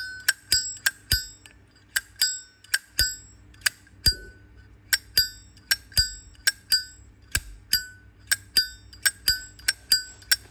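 Silver-plated 2008 Zippo lighter's lid being flicked open and snapped shut over and over. Each stroke is a sharp metal click with a bright, bell-like ring, about two to four clicks a second and unevenly spaced.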